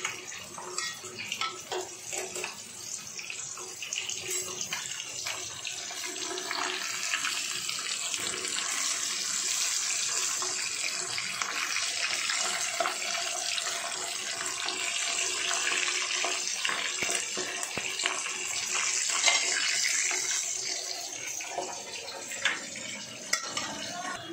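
Fish frying in hot oil in a pan: a steady sizzle with crackling pops. It grows louder about four seconds in and eases near the end.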